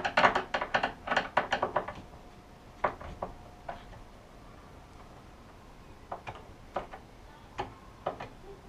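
Screwdriver working a screw at a metal concealed hinge on a cupboard door: a quick run of clicks and knocks over the first two seconds, then scattered clicks with pauses between.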